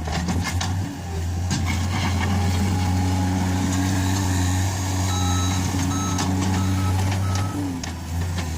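Case SR130 skid steer loader's engine running steadily. A little past halfway its reversing alarm beeps about four times at an even pace.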